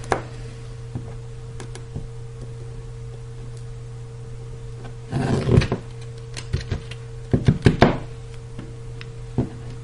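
Small tool tapping and clicking against the opened iPhone 4S's logic board and metal frame, with a short scraping rustle about five seconds in and a quick run of clicks near eight seconds, over a steady low hum.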